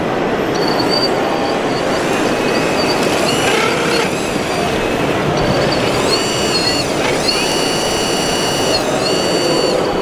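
High-pitched electric whine of 1/14-scale RC hydraulic machines, a Liebherr tracked excavator among them, working as the excavator digs and loads a dump truck. The whine comes and goes, is strongest in the second half and dips in pitch a few times. It sits over the steady noise of a busy exhibition hall.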